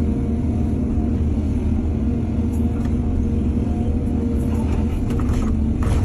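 Heavy diesel engine of an excavator running steadily under load, with a few short knocks and rattles in the second half.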